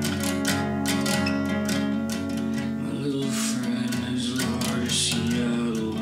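Guitar played in a steady rhythm, strummed and picked chords ringing on.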